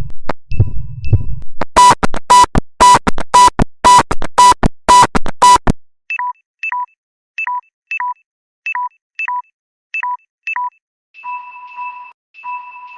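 Electronic low-battery alert tones from a phone, in a changing sequence. First a low throb under faint high beeps, then loud sharp beeps about twice a second, then quick pairs of short beeps, and from about eleven seconds in longer held two-tone beeps.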